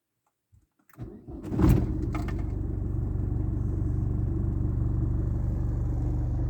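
A 1995 Ford Escort's engine is cranked by the starter for under a second, catches with a brief rise in revs, then settles into a steady idle.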